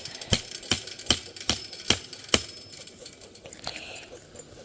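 Hammer blows driving a fence staple into a wooden fence post, about two or three sharp strikes a second, stopping about two and a half seconds in.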